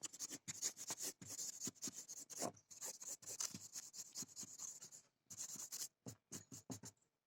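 Felt-tip marker scribbling back and forth on thin paper, colouring it in with quick repeated strokes that pause briefly and thin out near the end.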